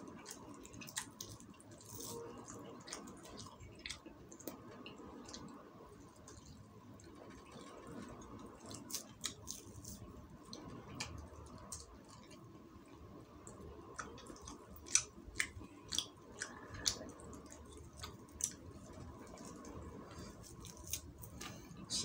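Close mouth sounds of a person chewing quail meat eaten by hand, with many scattered short clicks and smacks as the meat is chewed and pulled apart with the fingers.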